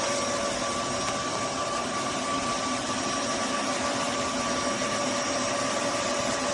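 Roborock F25 LT wet-and-dry vacuum-mop running steadily: an even rushing noise with a constant motor whine.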